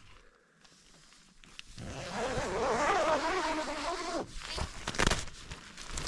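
Tent fabric being handled and pushed aside, ending in a few short crackling rustles. Before that, a wavering pitched sound lasts about two seconds and is the loudest thing heard.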